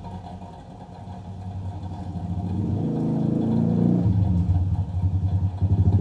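A motor vehicle engine running close by, growing louder from about two seconds in with a low, pulsing drone.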